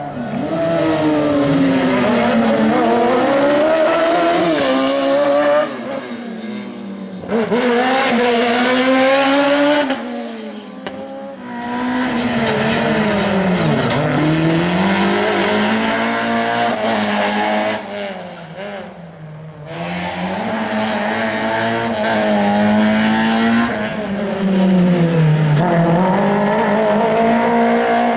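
Rally car engines revved hard through a tight cone-and-tyre slalom, the pitch climbing and dropping sharply again and again with each lift-off, gear change and burst of throttle. A few brief quieter gaps fall between the bursts.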